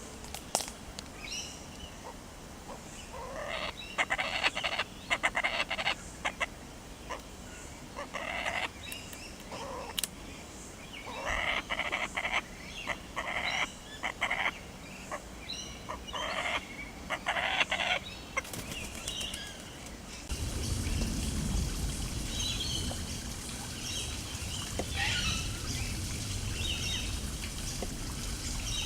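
Laughing kookaburra calling in loud, harsh bursts of rapid repeated notes, on and off for about fifteen seconds. Later the calls stop, and a low wind rumble sets in with faint chirps of small birds.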